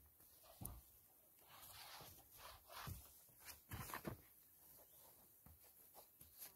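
Faint, irregular scraping strokes of a brush spreading primer over a dusty roof surface.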